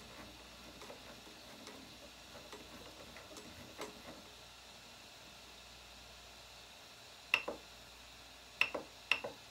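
Rotary control knob on a LulzBot TAZ 6 3D printer's LCD controller being turned, ticking softly through its detents for the first few seconds. Near the end it is pressed three times with sharp clicks.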